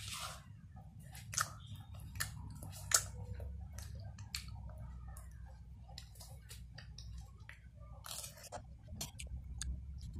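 Child eating soft chicken rice porridge: chewing and mouth sounds, with a metal spoon clinking and scraping against a ceramic bowl in sharp clicks, the loudest about one and a half and three seconds in. A steady low hum runs underneath.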